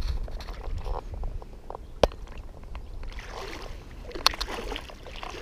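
Shallow lake water sloshing and splashing close to the microphone, with low rumble early on and two sharp clicks, about two seconds in and just after four seconds.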